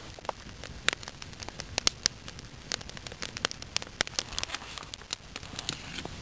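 Wood campfire on a grate crackling, with irregular sharp pops and snaps over a low hiss; the loudest pops come about one and two seconds in.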